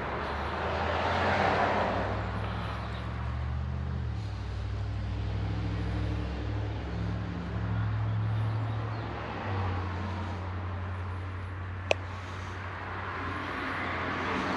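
Background road traffic: a low engine hum that shifts in pitch several times. One sharp click near the end.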